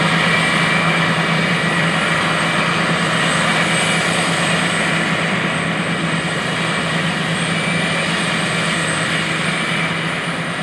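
Self-propelled forage harvester chopping corn, its engine and chopping gear running as one steady, loud drone with a constant low hum and thin high whines over it. It eases off a little near the end.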